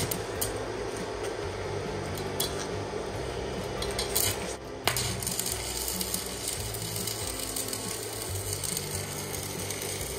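Stick-welding arc from a small EENOUR MIG-120L welder in electrode mode: a steady crackling sizzle with sparks spattering, breaking off briefly about halfway and coming back with a sharp crack. The current is set strong and the welder thinks his electrodes have gone damp.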